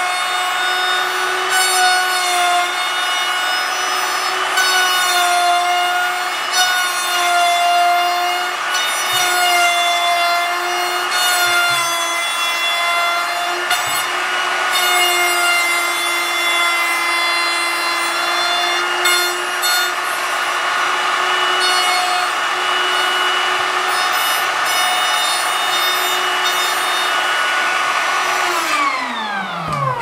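Plunge router running and cutting a shallow hinge recess into softwood: a steady high whine over the noise of the cut, its pitch wavering slightly. Near the end the motor is switched off and the whine falls away as it spins down.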